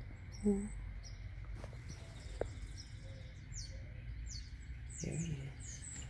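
Small songbirds chirping: many short, high, falling chirps, coming thicker in the second half. A brief low sound about half a second in is the loudest moment.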